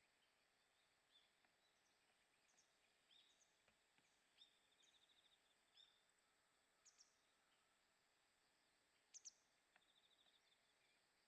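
Faint calls of small birds over a quiet background hiss: scattered short high chips, a brief rattling trill about four and a half seconds in and another near the end, and two sharp high notes about nine seconds in that are the loudest sounds.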